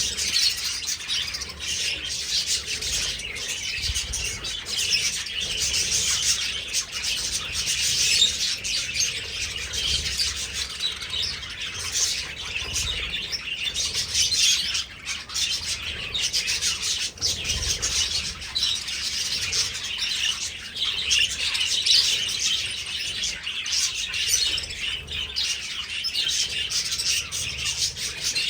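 A flock of budgerigars chattering and chirping continuously, many birds calling over one another at once.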